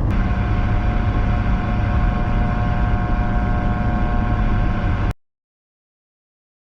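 Steady road and engine noise heard inside a moving car's cabin, a low rumble with a faint steady whine. It cuts off abruptly to dead silence about five seconds in.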